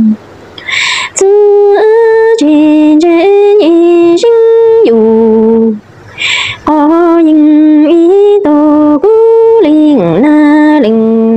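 A woman singing a Hmong lug txaj, a sung poem lamenting an orphan, unaccompanied. She holds long notes that step up and down, and breaks twice for a sharp breath, near the start and about halfway through.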